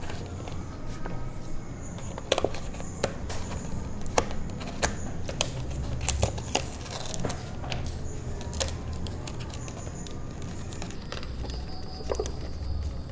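Cardboard packaging being handled and opened by hand: irregular sharp clicks, taps and scrapes of cardboard and plastic as tape is slit with a small knife and foam darts are pulled out. A low steady hum runs underneath.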